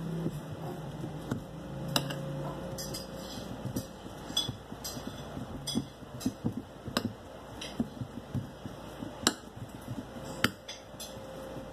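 A utensil clinking and knocking against a bowl of boiled potato being mashed, in sharp irregular strikes about once a second. A low hum fades out about two seconds in.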